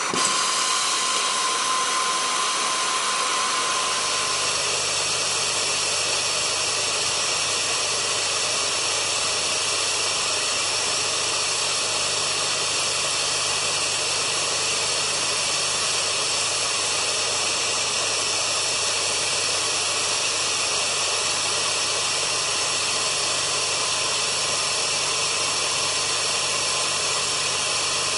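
FINEPLACER hot gas rework system's heating nozzle blowing hot gas onto a BGA to reflow new solder balls through a stencil: a steady hiss, with a low hum joining about four seconds in.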